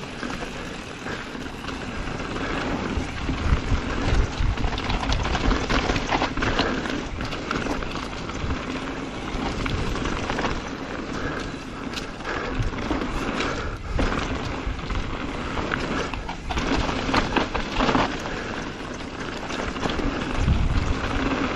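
Mountain bike riding fast down a dry dirt and gravel trail, heard from a camera mounted on the bike: the tyres crunch over dirt and loose stones, frequent knocks and rattles come as the bike hits bumps, and wind rumbles on the microphone.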